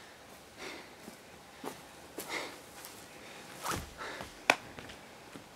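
Soft, heavy breaths of a climber out of breath after a hard boulder problem, a few puffs well spaced apart, with light scuffs and one sharp tap of feet on rock near the end.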